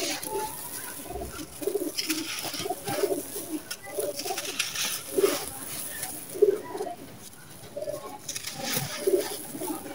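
Dry sand-cement chunks crumbled in the hands: gritty crunching and grains trickling down, in clusters about two seconds in, around four to five seconds in and near the end. A bird calls low and repeatedly behind it.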